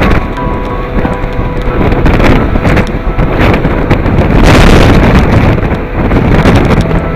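Gale-force wind buffeting the microphone in rough, uneven gusts, with a stronger gust about two thirds of the way in.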